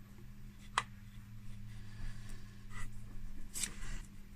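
Light metal clicks and a brief scrape as an M52B30 connecting rod's big end is handled against the crankshaft journal after the piston is pushed home, over a steady low hum. One sharp click comes about a second in, the scrape near the end.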